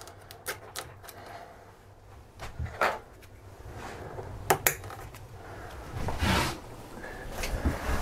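Irregular light clicks, taps and rustles of hands fastening a plastic zip tie around an armored fiber optic cable on a metal workbench.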